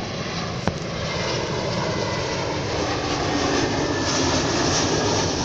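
Boeing 757 airliner on landing approach, landing gear down, passing low overhead: a loud, steady jet rush that grows slightly louder as it nears. A single brief click under a second in.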